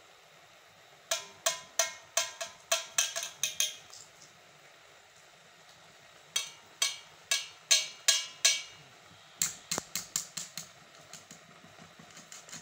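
A metal kitchen utensil knocking against a steel cooking pot in three runs of sharp, ringing taps, about three a second.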